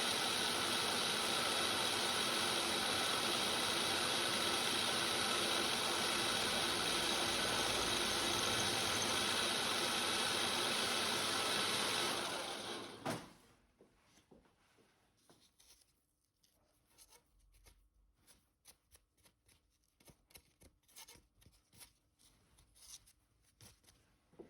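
A workshop machine tool running steadily with a mechanical hum and whine, then switched off and winding down about halfway through, with a click as it stops. Faint light clicks and handling noises follow.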